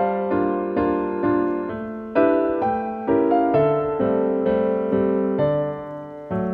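Background music played on piano, with notes and chords struck about twice a second, each fading away before the next.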